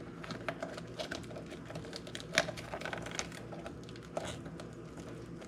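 Hands working a scrunched-up 3D-printed foam insert into a rubber RC crawler tire: faint, irregular rustling and small clicks and taps, with one sharper click a little before the middle.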